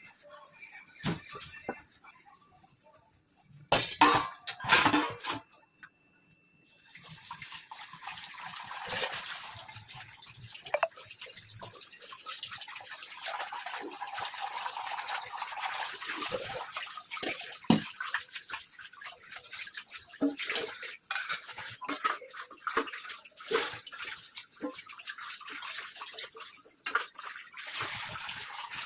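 Water running from a tap, with dishes and utensils knocking and clinking, as in washing up at a sink. A few loud knocks come about four seconds in, before the water starts running steadily.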